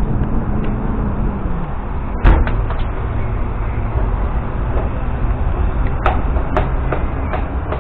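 Steady wind and rolling rumble of a bicycle ride. A sharp knock comes about two seconds in, and a few light clicks and rattles follow near the end.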